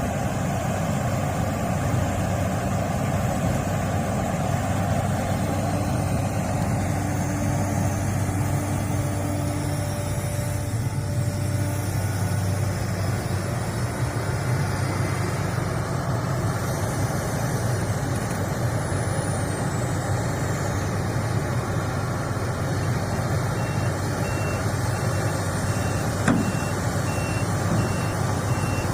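Heavy diesel engine running steadily. About five seconds before the end, a high, evenly repeating warning beeper starts, and there is one short knock shortly after.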